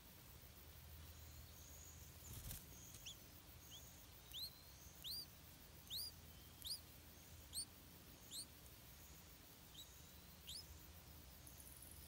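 Stripe-throated bulbul nestling begging at the nest: a run of about ten short, high, rising chirps, roughly one every two-thirds of a second, while it is fed. A single sharp knock comes just before the chirps begin.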